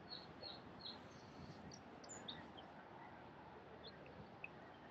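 Near silence with faint, high bird chirps scattered through it, several close together in the first second and a few more later.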